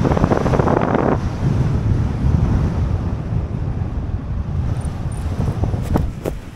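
Airflow rushing over the camera microphone of a paraglider pilot on final approach. It is loud at first and drops to a low rumble after about a second. Near the end come a few sharp knocks as the pilot's feet reach the ground.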